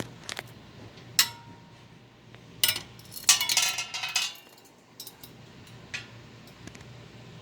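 Hard parts of a ceiling fan light kit clinking and rattling as they are handled. A sharp clink about a second in rings briefly, then a quick run of rattling clinks follows around three to four seconds in.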